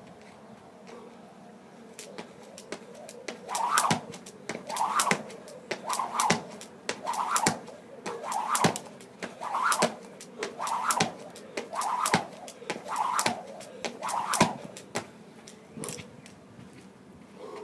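A person doing repeated workout reps: about ten even strokes a little over a second apart, each a short rushing sound with a sharp click or knock.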